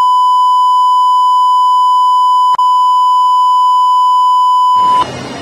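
A loud, steady electronic beep tone held for about five seconds, with a brief click partway through. It cuts off suddenly near the end and gives way to background noise.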